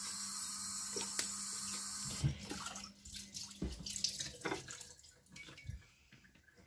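Kitchen tap running into a stainless-steel sink as dishes are washed, a steady hiss that is shut off about two seconds in. Scattered knocks and clatter follow, dying away near the end.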